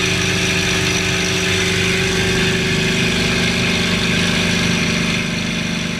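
Spitfire piston aircraft engine sound effect running steadily at a low, even speed, fading out near the end.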